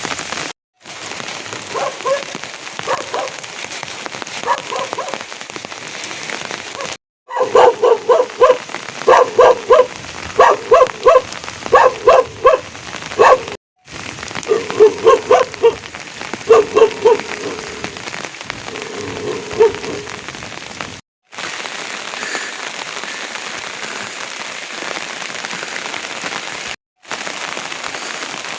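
Steady rain falling, with a dog barking in repeated quick series, the barks loudest in the middle stretch and fading out about two-thirds of the way through. The sound drops out for a moment a few times.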